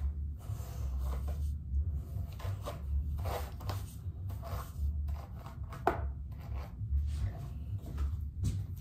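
A Tangle Teezer detangling brush drawn through long hair, in repeated, uneven brushing strokes. The sharpest stroke comes about six seconds in, over a low steady rumble.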